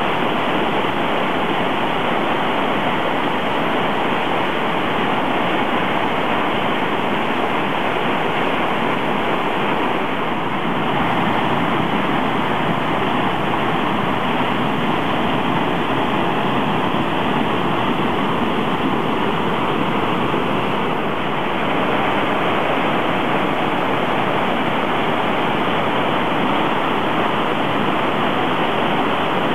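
Swollen, muddy mountain stream in flood, rushing hard down a steep rocky channel. A loud, steady roar of water that dips slightly twice.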